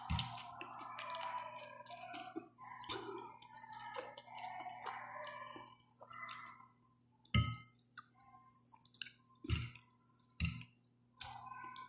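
Someone eating noodles with a fork from a ceramic bowl: wet slurping and chewing with small clicks of the fork against the bowl. A few louder knocks come in the second half.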